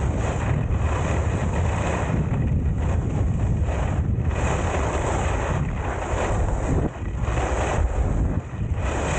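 Wind buffeting the microphone of a skier's camera while skiing down the piste: a loud, steady rush with swelling and fading surges and two brief dips late on.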